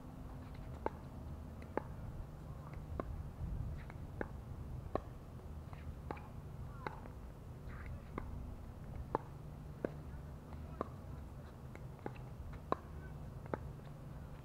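A long pickleball rally: the sharp pops of paddles hitting the hard plastic ball come roughly once a second, over a low steady background rumble.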